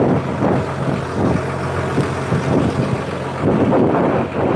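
Engine of a wooden river boat running steadily under way, with wind gusting on the microphone.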